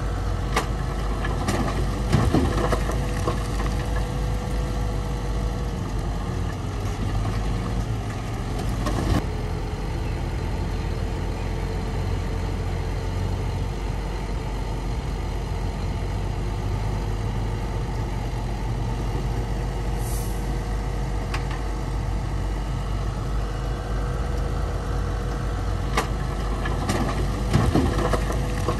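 Heavy diesel earthmoving machinery running steadily: a low engine rumble with a steady whine over it. Sharp clanks and knocks come through it, several in the first few seconds, one about nine seconds in, and more near the end.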